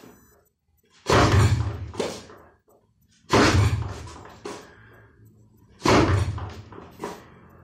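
Bare-knuckle lead-hand punches (kizami zuki) striking a wooden makiwara post: three heavy thuds about two and a half seconds apart, each followed about a second later by a fainter knock.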